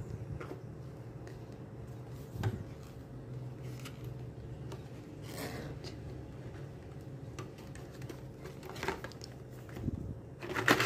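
Hands opening a paperboard retail box: flaps and the inner tray scraping and rubbing, with scattered small clicks and a sharper tap about two and a half seconds in.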